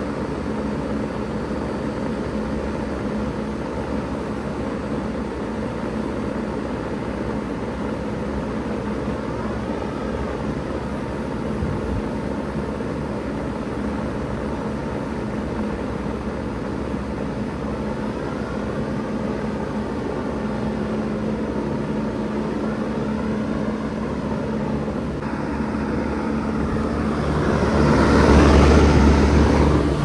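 2000 Bard 3-ton wall-hung heat pump running in cooling mode: steady compressor hum with the whoosh of the condenser fan. It grows louder over the last few seconds as the fan noise is heard up close at the grille.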